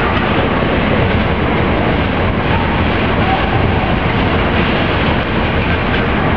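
Freight train's coal hopper wagons rolling past at speed close by, a loud steady rumble of wheels on the rails.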